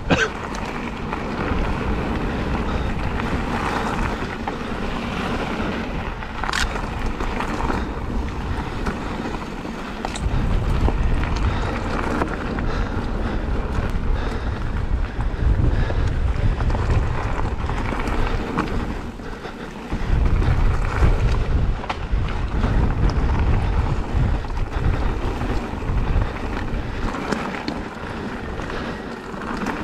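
Wind buffeting a helmet-mounted action camera's microphone while a mountain bike rolls down a forest trail, its tyres rumbling over the dirt with occasional knocks and rattles. The rumble gets heavier about ten seconds in and again about twenty seconds in.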